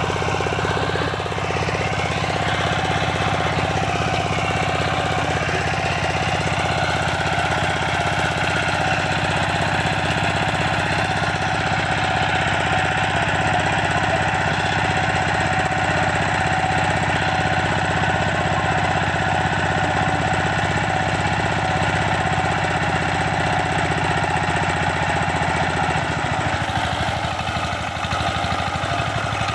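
Single-cylinder diesel engine of a two-wheel power tiller running steadily with a rapid knocking beat while the machine works in deep paddy mud, dipping slightly near the end.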